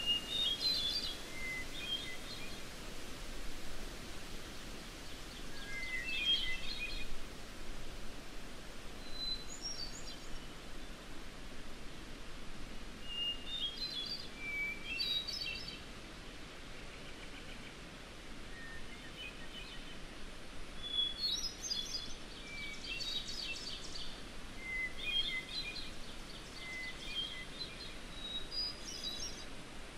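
Songbird singing in a field recording: about a dozen short, fluting phrases every two to three seconds, each starting on a different pitch, over a steady background hiss of outdoor ambience.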